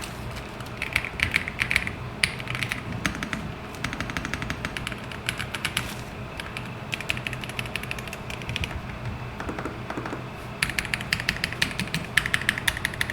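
Typing on a Royal Kludge R65 mechanical keyboard: rapid runs of keystroke clacks in several bursts with short pauses between them, the last and loudest run starting near the end.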